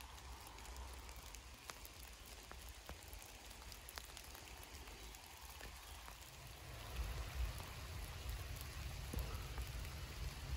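Faint steady hiss with scattered light ticks, like rain pattering. A low rumble comes in about seven seconds in.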